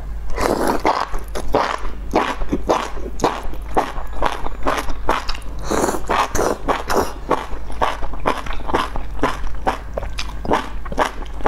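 A person slurping enoki mushrooms out of an oily chili broth and chewing them wetly and rhythmically, about three to four chews a second. Longer slurps come at the start and about six seconds in, over a steady low hum.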